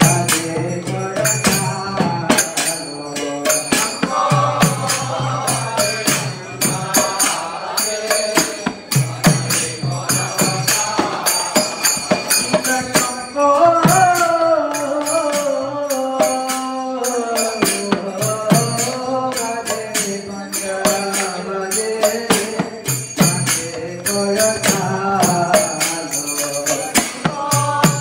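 Devotional kirtan: a lead singer chants an arati song through a microphone over a two-headed mridanga drum and a steady jingle of small hand cymbals.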